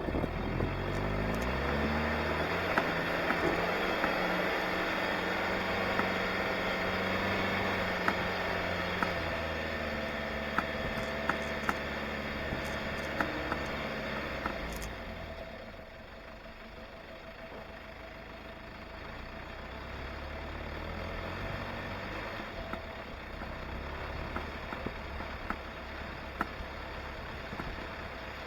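Engine running at low revs, its pitch shifting up and down, with light clicks and rattles. It drops quieter a little past halfway and builds again later.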